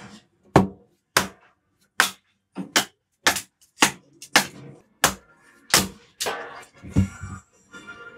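A red mallet striking the back of a hatchet over and over to split kindling: a string of about a dozen sharp knocks, roughly one every half second to second.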